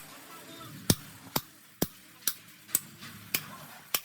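Steady hand-hammer blows, about two a second, seven strikes in all, in the work of repairing a heavy truck's brake shoes and linings.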